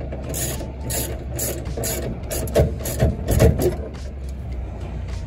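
Socket ratchet wrench clicking in short back-and-forth strokes, about two a second, as nuts are run down onto mounting studs to hold a plate; the strokes stop about four seconds in.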